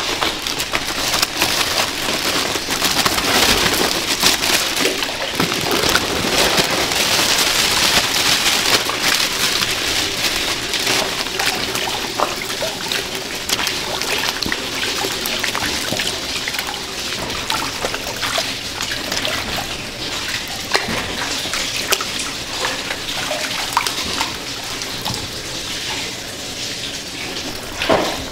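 Water running and churning in a stainless steel washing tub as peeled onions are rinsed by hand, a steady hiss with many small splashes.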